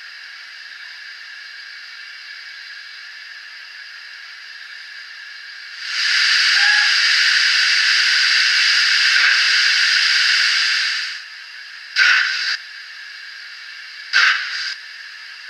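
Steam-locomotive hiss from the onboard DCC sound decoder of a Graham Farish N gauge Castle class model, played through its small speaker with no bass. A steady low hiss becomes much louder for about five seconds from around six seconds in, then drops back, and short hiss bursts follow near the end.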